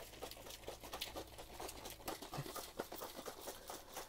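A shaker cup of G Fuel powder and water being shaken hard, giving faint, quick sloshing and rattling.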